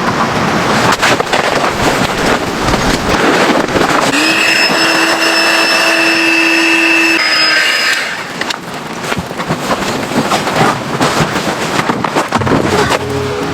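Strong wind buffeting the microphone in gusts during a snowstorm. About four seconds in, a steady pitched tone begins with a short rise, holds for about three seconds, then cuts off.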